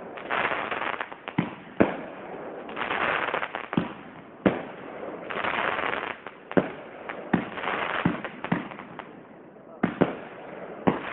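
Aerial fireworks going off in quick succession: a dozen or so sharp bangs from bursting shells, with stretches of dense crackling between them.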